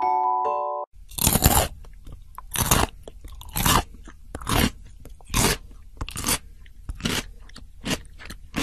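Hamster biting into and crunching a piece of raw carrot: about nine loud, crisp crunches roughly once a second, with quieter chewing between them. Short mallet-percussion music stops about a second in.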